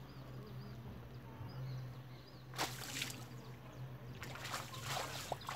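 Water splashing and sloshing at the pond's edge as a caught fish is put back into the water: one short splash a little before midway and a longer, rougher stretch of splashing near the end, over a steady low hum.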